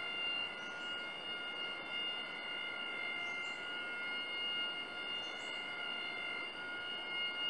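Rainforest insect chorus: a steady, high-pitched whine in several stacked tones, with a short rising chirp higher up every two seconds or so.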